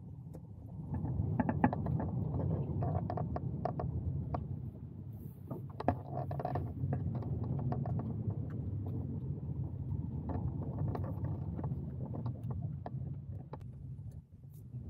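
A steady low mechanical rumble with many small clicks, knocks and rattles scattered over it.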